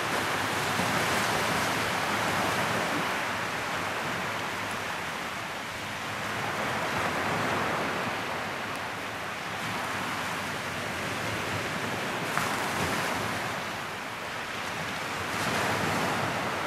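Sea waves washing up and back on a sandy beach, the rush of the surf swelling and easing every few seconds.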